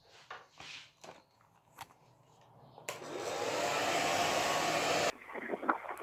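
Philips 1200-watt hand-held hair dryer switched on, blowing steadily for about two seconds, then cutting off abruptly. A few faint clicks come before it starts.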